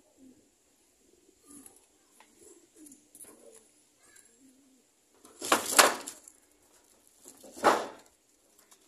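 Domestic pigeons cooing faintly in their coops, with two short, loud bursts of rustling noise about five and a half and seven and a half seconds in.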